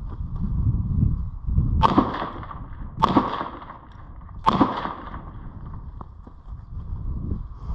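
Three shots from a Glock 19 9mm pistol, about a second and then a second and a half apart, each cracking sharply and ringing briefly.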